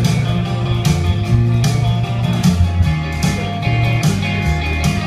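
Instrumental break of a country song: an acoustic-electric guitar strummed in a steady rhythm over bass notes that step from one to the next.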